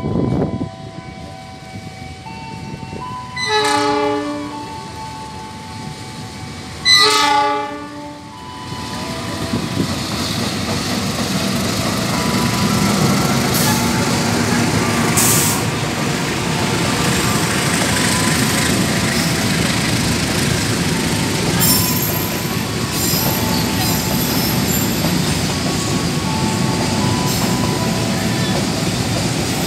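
Diesel locomotive horn, two pitched blasts about three and a half and seven seconds in. Then a GE CC 206 (CM20EMP) diesel-electric locomotive and its loaded container wagons roll past on the rails, a steady rolling noise with brief high wheel squeals now and then.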